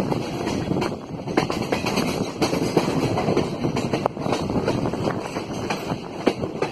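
Indian Railways express train rolling past at close range: a steady rumble of wheels on the rails, with scattered sharp clicks as the wheels cross rail joints.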